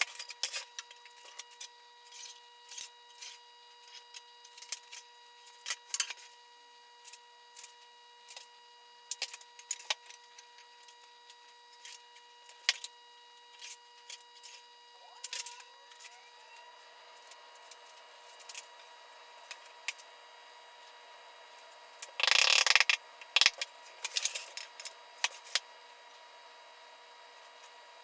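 Workshop handling sounds: scattered clicks and knocks of hard maple pieces and tools being moved and set down while the dowel holes are drilled, with one louder noisy burst lasting about a second a little after 22 seconds in.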